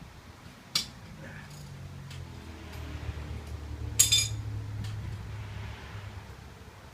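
Metal hand tools clinking while a wheel is taken off a motorcycle: a sharp click about a second in, then a louder ringing metallic clink about four seconds in. A low hum swells and fades under them.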